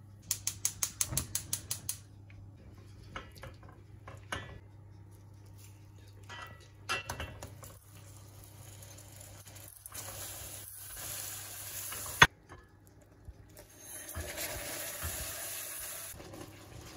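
Caramel cooking in a stainless steel saucepan. A quick run of clicks comes near the start, then scattered knocks against the pot. In the second half there are two stretches of sizzling hiss as butter and hot cream go into the melted sugar, with one sharp clack between them.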